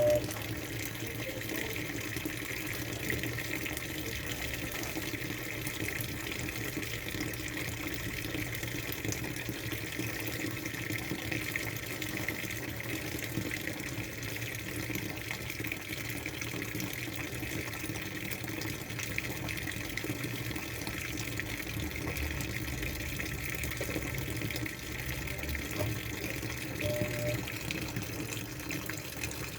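Washing machine filling: water running steadily into the drum.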